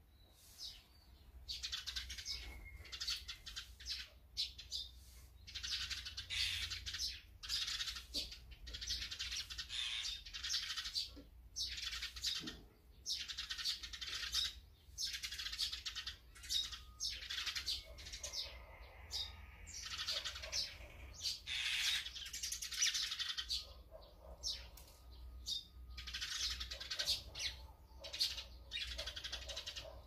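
A flock of azure-winged magpies calling: a continuous string of short rasping calls, one after another with only brief gaps.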